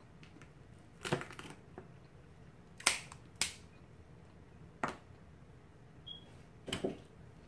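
Crab leg shells cracking as they are snapped apart by hand: five sharp cracks spread over several seconds, the first and last a little longer and crunchier than the rest.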